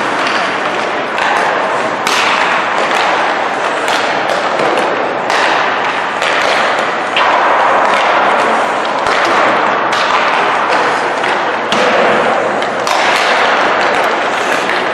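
Ice hockey warm-up on the rink: pucks are struck by sticks and thud against the boards every second or two over a steady scraping hiss of skates on ice.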